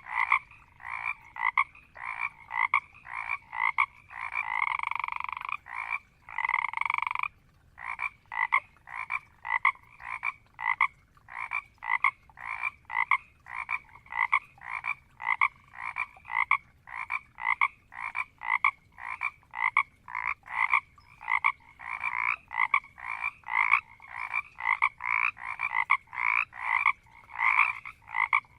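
Frogs in a marsh croaking in a steady run of short calls, about two a second, with a longer drawn-out call from about four to seven seconds in.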